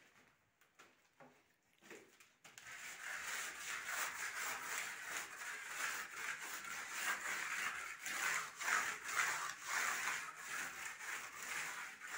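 A small hand-held pad rubbing over a painted plaster wall in back-and-forth strokes, a rhythmic scratchy rubbing that starts about two and a half seconds in after a few light taps.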